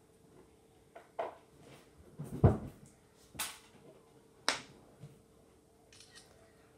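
About six short, sharp clicks at irregular intervals, the loudest about two and a half seconds in.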